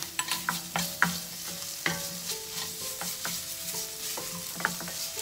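Wooden spatula scraping and knocking against a stainless steel pan while stirring chopped onions and ginger-garlic paste frying in oil, over a steady sizzle. The sharpest knocks come about a second in and near two seconds.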